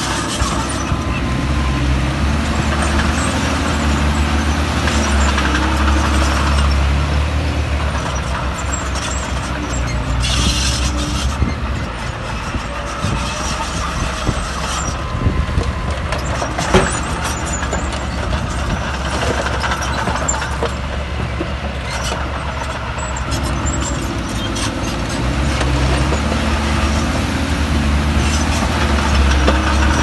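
Heavy diesel earthmoving machinery running under load, with a deep engine throb that eases off in the middle and swells again in the last several seconds. Metal clanking and rattling run through it, with a short hiss about ten seconds in and one sharp knock a little past halfway.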